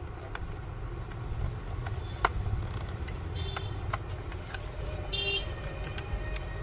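Steady low rumble of road traffic, with a short vehicle horn toot twice: a little after three seconds in and again about five seconds in. Light clicks and taps come from a screwdriver and the plastic housing of an electric iron as a wire terminal is tightened and the iron is handled; the sharpest click comes about two seconds in.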